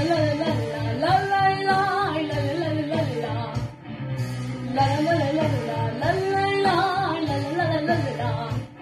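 A girl singing into a microphone over a backing track with an even, pulsing bass beat. Two long sung phrases: the first breaks off about three and a half seconds in, the second starts around five seconds and runs nearly to the end.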